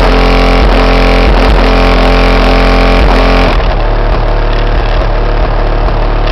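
Heavy bass from two Kicker CVX 15-inch subwoofers driven by a 5500-watt amplifier, loud enough to overload the recording. The bass line changes about three and a half seconds in.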